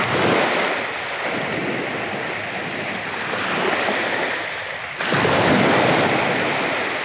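Small waves breaking and washing up a sandy beach, with wind noise on the microphone. A louder surge of wash comes suddenly about five seconds in.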